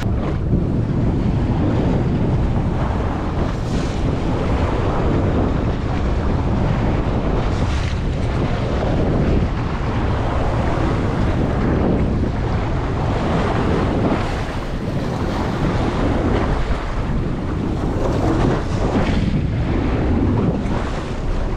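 Steady wind buffeting the microphone over a choppy sea, with the wash of waves around the boat.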